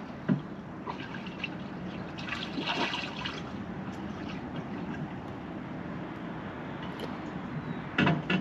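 Water sloshing and splashing from fishing footage playing through the boat's Fusion marine stereo, over a steady hiss, with a short knock just after the start and a louder brief burst near the end.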